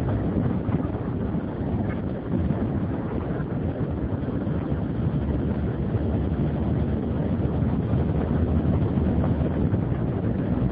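Steady wind rushing over the microphone of a moving BMW Funduro motorcycle at road speed, with the bike's engine and tyre noise blended underneath.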